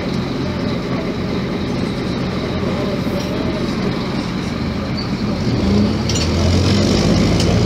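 Scania K270IB bus's rear-mounted diesel engine running under way, heard from inside the passenger cabin with road noise. Its steady low note grows louder about five and a half seconds in.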